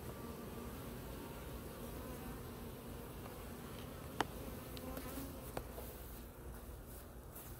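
Many honeybees buzzing at a busy hive entrance: a steady hum of wingbeats. A sharp click a little past halfway, and a fainter one about a second later.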